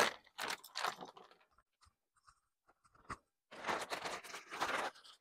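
Clear plastic packaging bag crinkling and rustling as it is handled, in two spells: briefly at the start and again for over a second near the end, with a single small knock in between.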